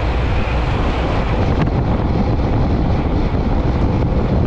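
Wind buffeting a bike-mounted camera's microphone while riding a road bike at speed: a steady, loud rush heavy in the low end.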